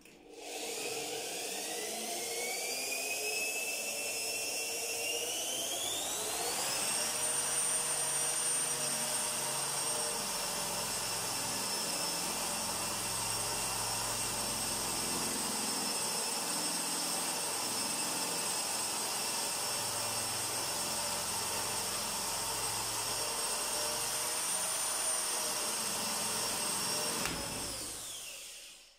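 Electric drill with a wood bit boring a hole down through parquet flooring into the void beneath. The motor whine rises over the first few seconds, holds steady, then winds down and stops near the end.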